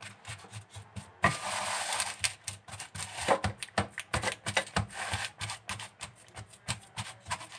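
A spatula pressing and scraping a crushed-cookie crumb base flat in a metal springform pan: irregular taps and short scrapes, with a longer scrape a little over a second in.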